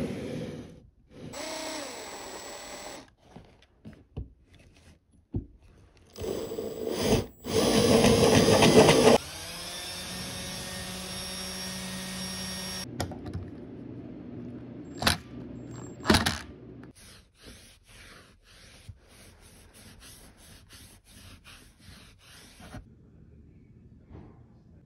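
A run of short woodworking-shop sounds: a cordless drill runs steadily for about four seconds around the middle, driving into a padauk lamp base. Around it are bursts of noise, a few sharp knocks, and later a quick run of even pulses.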